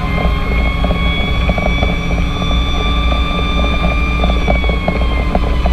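Fire engine's diesel engine running on the road, with a siren wail slowly rising in pitch and then falling away near the end.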